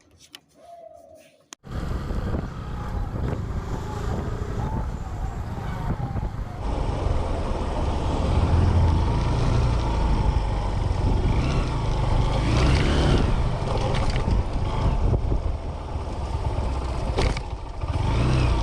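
A road vehicle on the move: a steady low rumble of engine and road noise that starts abruptly about a second and a half in.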